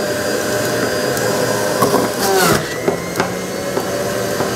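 National electric juice extractor running steadily as fruit is pressed down its feed chute with a plastic pusher. There are several knocks, and a short falling whine about two and a half seconds in.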